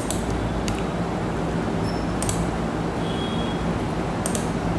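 Steady low electrical hum with a hiss of background noise, broken by a few faint short clicks.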